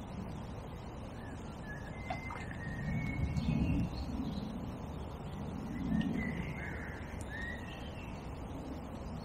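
Wild birds calling in short scattered notes over a low rumble that swells twice, about three and a half and six seconds in.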